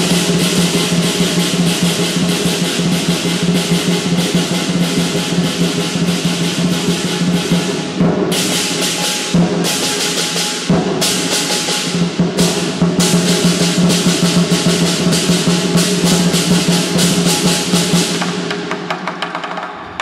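Lion dance percussion: a drum beaten in fast rolls with crashing hand cymbals, playing continuously with a few brief breaks between about eight and thirteen seconds in.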